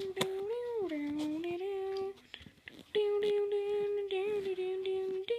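A voice humming a tune in long held notes that step and glide in pitch, breaking off for a breath about two seconds in. Scattered light clicks and rustles of paper being handled sound under it.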